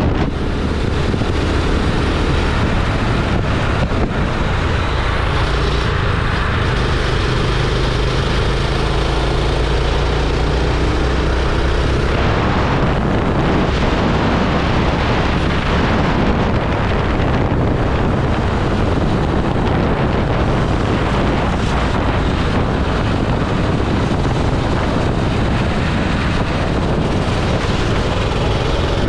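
Go-kart engine running at speed, its pitch rising and falling as the throttle changes, with wind buffeting on the microphone.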